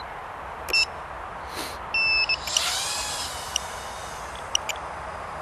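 Electronic beeps: a short one, then a longer steady tone. About two and a half seconds in comes a brief rising whine as a Tinyhawk 2 micro quadcopter's motors spin up, with a steady hiss throughout.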